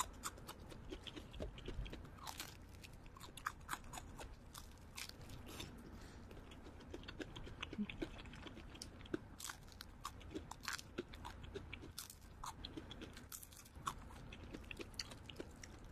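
Crunching and chewing of crispy fried chicken, a close run of crisp, irregular crackles throughout.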